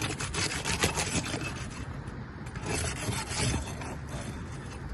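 Rasping and scraping against asphalt shingles as a tool is worked under them to free the old nails, in a quick run of short strokes at first and rougher scrapes a little later.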